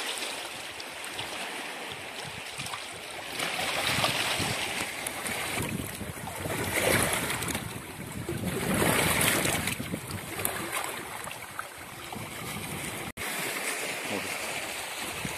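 Small waves lapping and washing against the stone shore of a large reservoir, swelling louder about four, seven and nine seconds in.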